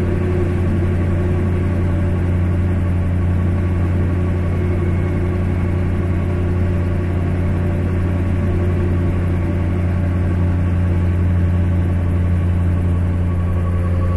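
Steady, low engine drone of an aircraft, heard from inside. It holds one unchanging pitch throughout.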